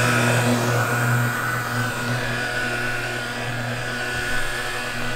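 Electric car polisher running at a steady medium speed, its foam pad working first-stage polish into the paint: a steady motor hum with a higher whine above it, swelling slightly as the pad moves.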